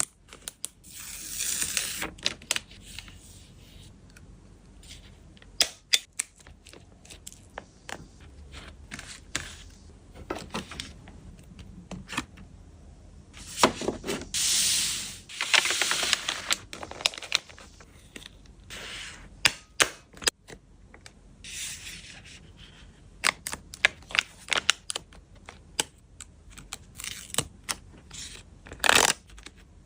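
Photocards and their plastic packaging being handled: scattered sharp taps and clicks, with a few longer crinkling, tearing-like rustles, the longest about halfway through.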